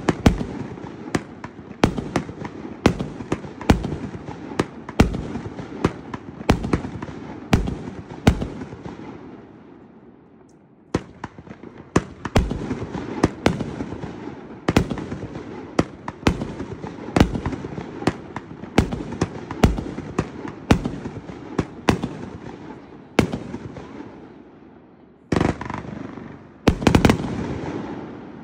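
A 500-gram consumer firework cake firing shot after shot: sharp bangs about once a second, each trailing off, with a short lull about ten seconds in. Two longer, denser volleys come near the end.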